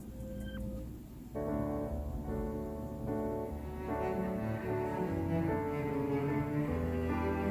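Background music: slow bowed strings, cello and double bass, with piano, the strings coming in fuller about a second in.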